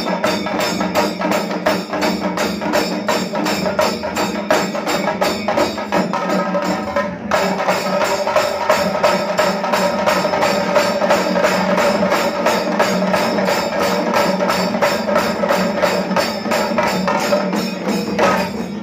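A troupe of festival drummers beating stick-played drums together in a rapid, dense rhythm. The beating breaks off briefly about seven seconds in, then carries on and stops just before the end.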